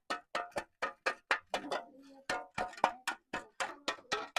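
Repeated hammer blows on metal, about four a second, each with a short ring, with a brief pause about two seconds in.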